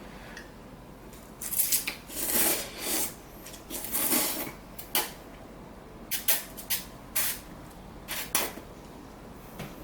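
A person eating ramen close to the microphone: a few noisy half-second slurps of noodles, then a string of short clicks and taps, typical of utensils against the bowl.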